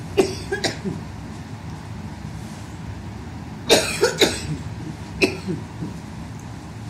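A woman coughing in short fits: a few coughs at the start, three in quick succession about four seconds in, and one more a second later.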